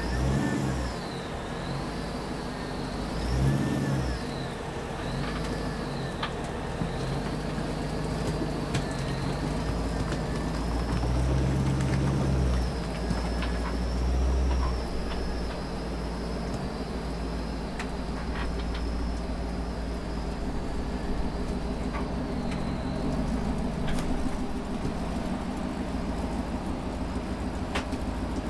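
Rock-crawling buggy's engine revving in bursts as it climbs a steep rock ledge, with scattered knocks. A high whine wavers up and down over it, then holds steady for a long stretch.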